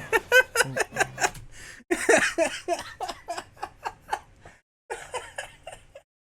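A person laughing hard in quick repeated "ha" pulses, in three runs with short breaks, stopping about six seconds in.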